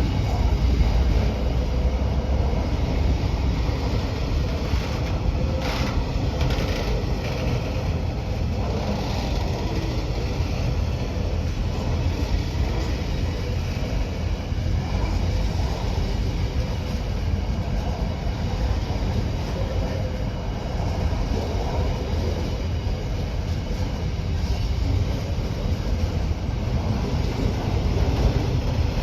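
A train hauled by a KiwiRail DL-class diesel locomotive rolling past, a steady rumble of wheels on rail with a few brief clicks about six seconds in.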